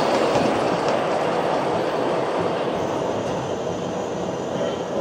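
Model train running on the layout's track, its wheels rumbling and clicking over the rails as it moves away, the sound easing gradually.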